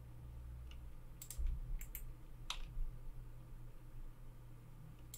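A few faint, scattered clicks of a computer keyboard and mouse in the first half, over a low steady hum.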